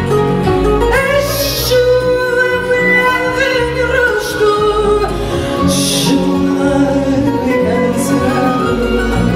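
Female fado singer performing live, her voice coming in about a second in over plucked classical guitar and Portuguese guitar accompaniment.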